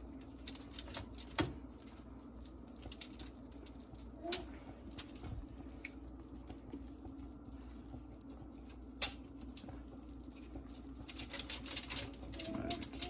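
Serrated knife sawing and crunching through crisp baked-potato skins on a foil-lined baking sheet, with scattered sharp clicks and crinkling of the foil; the scratching gets busier near the end. A steady low hum runs underneath.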